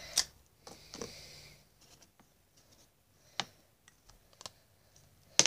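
Faint handling noises from pens and paper: a few light clicks and taps spread out over several seconds, with a brief scratchy rustle about a second in.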